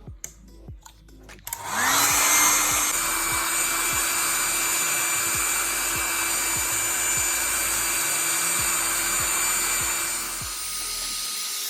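An electric air blower switches on about two seconds in, its motor rising in pitch as it spins up, then runs with a steady rushing hiss, drying the power-supply components. Background music with a steady beat plays underneath.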